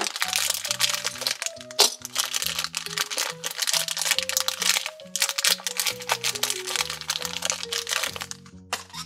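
Clear plastic bag crinkling and crackling as it is handled, over background music with a simple stepping tune; the crinkling stops shortly before the end.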